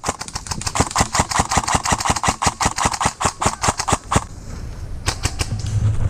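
Airsoft rifle firing full-auto: a long, rapid string of shots with a whirring gearbox under them. It stops about four seconds in, and a short burst follows about a second later.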